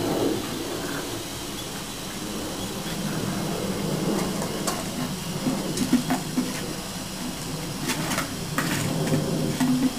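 Steady hiss of a fine water spray from a hose raining onto a wet patio, with puppies' paws pattering through the water and a few sharp clatters about halfway through and near the end.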